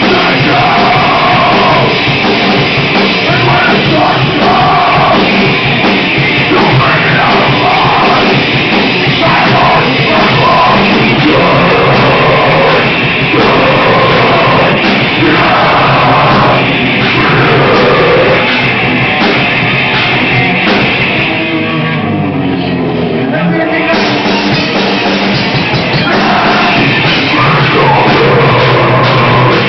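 Rock band playing loud, heavy music with drums, guitars and singing. Around two-thirds of the way through, the full band thins out for a couple of seconds, then crashes back in.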